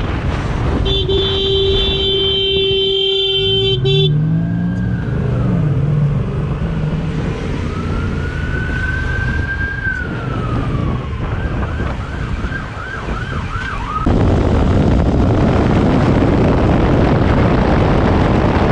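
A horn sounds steadily for about three seconds. A siren then wails up and down, switching to a fast yelp of about seven quick sweeps, while a motorcycle engine revs underneath. About fourteen seconds in, this gives way to a louder, steady noise of a motorcycle riding at speed.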